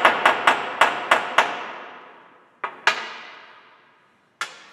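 Ball-peen hammer tapping quickly, about four light blows a second, on a finishing nail in a tubing punch on a bench vise, flaring the nail head so the punch holds on tight. The ringing fades away about a second after the last tap. A few separate clicks follow later.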